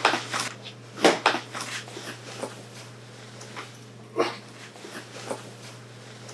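A dog-like animal snuffling and whimpering in irregular short bursts. The loudest come at the start and about a second in.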